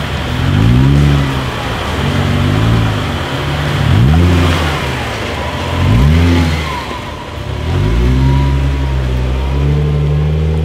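Lifted Jeep Wrangler with an Injen intake, its engine revving up and down in repeated throttle blips about every two seconds as it crawls over ruts, then settling into steadier revs near the end.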